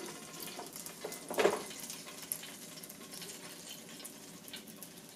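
Hot chicken wings and their oil sputtering and crackling faintly in an air fryer basket as it is pulled open. A brief louder noise about a second and a half in as the basket slides out.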